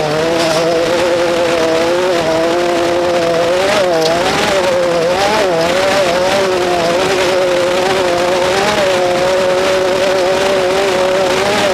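Off-road race vehicle's engine running hard at steady high revs, its pitch dipping and climbing again between about four and six seconds in, with scattered knocks over it.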